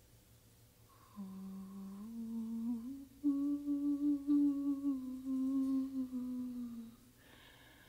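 A voice humming a slow line of held notes, entering about a second in and stepping upward twice before settling on a long held note with a slight waver; it stops shortly before the end.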